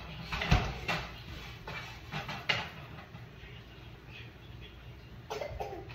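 Light kitchen clatter: a run of short knocks and clinks from things being handled and set down, the sharpest about half a second in and again about two and a half seconds in, with a couple of softer knocks near the end.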